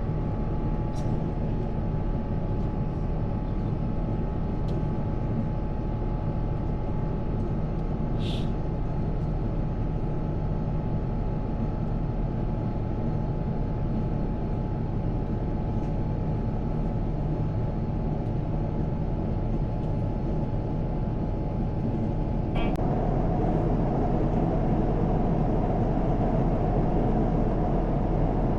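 Jet airliner cabin noise: the engines run steadily, with a steady whine over a low rumble. About two-thirds of the way through, after a click, the noise steps up and its whine changes pitch, as the engine power is raised.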